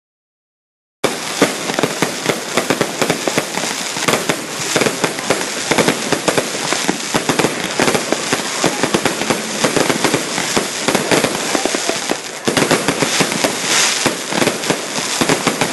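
Fireworks going off in a loud, dense crackle of rapid pops with no break, starting suddenly about a second in.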